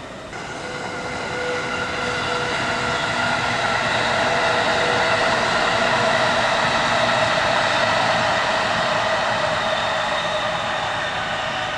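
JR East 205 series 5000-subseries electric commuter train passing at speed: wheel and motor running noise swells to a peak midway, then eases, with steady high-pitched whining tones over it.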